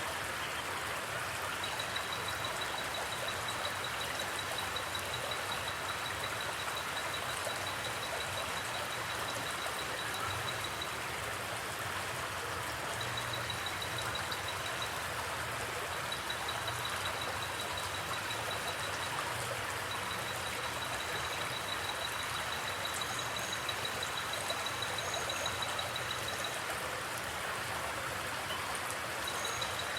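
Creek water flowing steadily. A high, rapid pulsing trill comes and goes in spells of several seconds over it.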